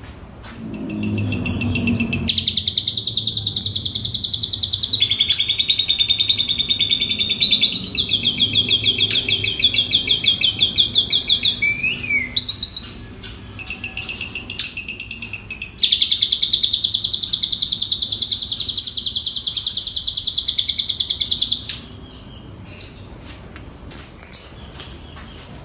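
A pied starling (jalak suren) singing long runs of fast, repeated trilled and chattering notes, mimicked phrases of other birds. It breaks off briefly about halfway and stops a few seconds before the end.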